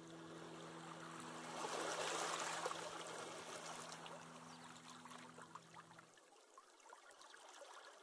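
Faint relaxing background soundtrack: a held low chord that stops about six seconds in, under a rushing water ambience that swells around two seconds in and then fades.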